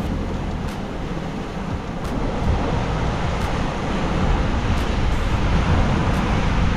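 Wind blowing on the microphone over the wash of sea surf on a rocky shore, a steady noise heavy in the lows that grows louder partway through.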